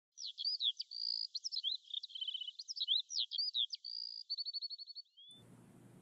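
A bird singing: a fast, varied run of whistled notes, sweeps and short trills that cuts off suddenly about five seconds in, after which a faint low hum is left.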